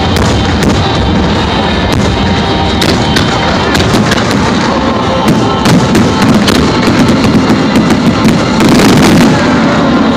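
Fireworks display going off in rapid succession, many sharp cracks and bangs over a constant din of bursts, with music playing underneath. The barrage is loudest near the end.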